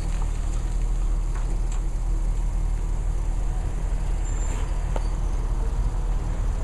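Gas-engined Hyster H5.0FT counterbalance forklift running as it drives slowly past, a steady low rumble with a few faint clicks.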